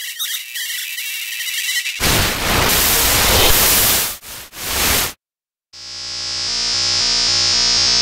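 Synthesized electrical-malfunction sound effects from the Xtreme FX sample library, auditioned one after another. First comes a thin high crackle with a faint whistle. About two seconds in, a loud harsh burst of static-like noise starts; it drops out briefly near four seconds and cuts off suddenly about five seconds in. After a short silence, a bright sustained synth tone made of many steady pitches swells in.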